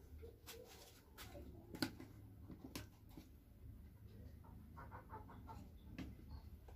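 Quiet table sounds: a few faint, sharp clicks and taps as food is handled for eating, the loudest about two seconds in. A chicken clucks faintly about five seconds in.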